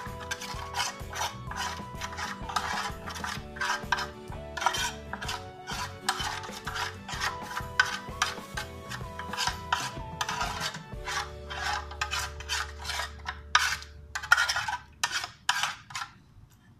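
Metal spoon stirring and scraping a liquid marinade in an aluminium baking pan, in quick repeated strokes that stop near the end.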